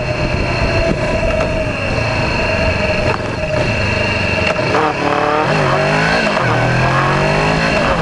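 Motorcycle engine under way, picked up by a low onboard camera along with wind and road noise. From about five seconds in, the engine note climbs and drops back several times as the revs rise and fall.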